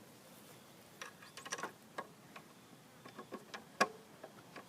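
Small plastic-and-metal clicks and taps from the lawn mower's oil dipstick being handled and refitted after an oil-level check: an uneven string of about a dozen light ticks, the sharpest one near the end.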